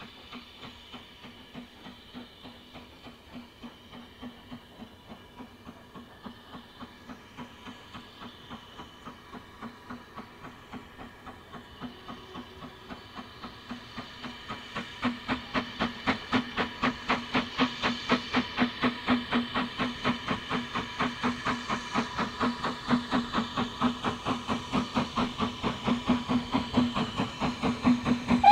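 Steam locomotive working under power and approaching, its exhaust beats coming evenly at about three a second and growing much louder from about halfway through.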